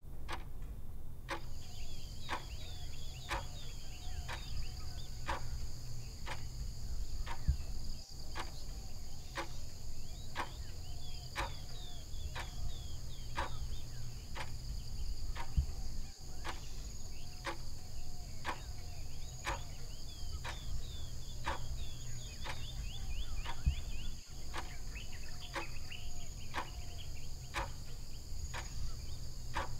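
Steady clock-like ticking, about two ticks a second, over a constant chorus of crickets, beginning about a second in. Faint short chirps and a low steady rumble lie underneath.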